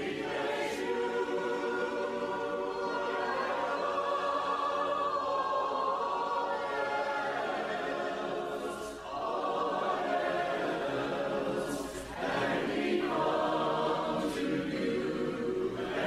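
A choir singing unaccompanied, in long held phrases with brief breaks about nine and twelve seconds in.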